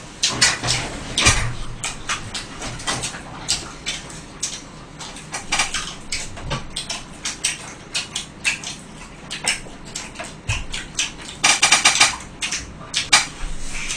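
Close-miked eating of fried chicken: a run of crunching bites and chewing, with chopsticks and dishes clicking; the crunches come thick and fast about eleven and a half seconds in.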